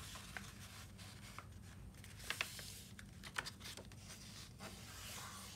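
Faint rustling of sheets of paper being folded to the centre and pressed flat by hand, with a few soft taps and crinkles spread through.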